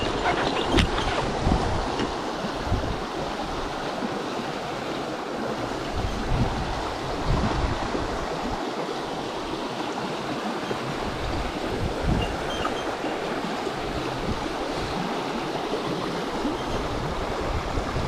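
Shallow stream running over a stony riffle, a steady rush of water, with low wind buffeting on the microphone now and then and a couple of knocks in the first second.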